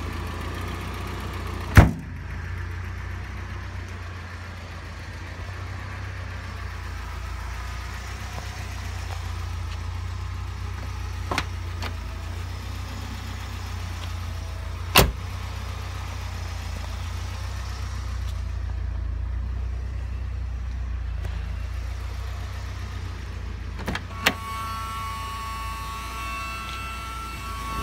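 1986 Alfa Romeo Spider's four-cylinder engine idling steadily. About two seconds in, a single loud slam as the hood is pushed shut, followed later by a few lighter knocks.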